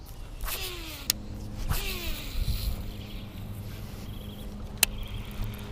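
Baitcasting reel working: two short whirs of the spool, each falling in pitch, and sharp clicks, one about a second in and one near the end. A steady low hum sets in about a second in.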